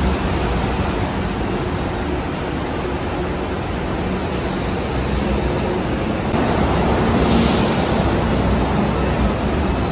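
City buses running and moving through an enclosed concrete bus interchange, a steady low engine rumble, with a short burst of hiss about seven seconds in.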